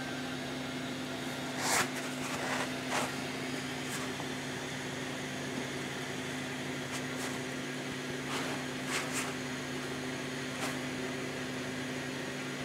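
Electric desk fan running with a steady hum, with a few brief rustles about two seconds in, around three seconds and again around nine seconds.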